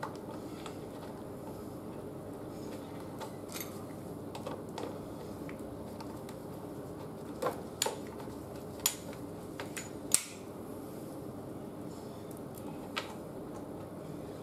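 Sharp metal clicks of a folding hex key fitting onto and turning the bolts of a fender riser on a motorcycle fork leg: a few faint ones early, a cluster of louder ones in the middle, one more near the end. Under them is a steady low background hum.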